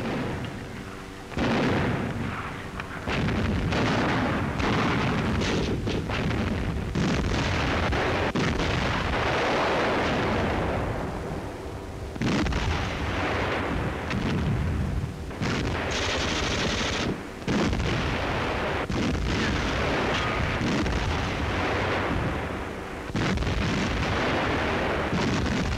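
Battle sounds on an old newsreel soundtrack: machine-gun and cannon fire with explosions in dense succession. They start suddenly about a second in and change abruptly several times where the film is cut.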